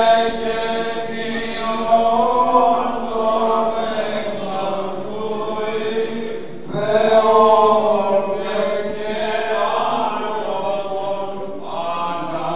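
Slow Orthodox church chanting, long held notes sung over a steady drone. New phrases begin about seven and about twelve seconds in.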